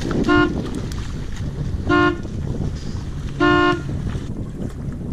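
Three short horn toots of the same steady pitch, evenly spaced about a second and a half apart, over a steady low noise.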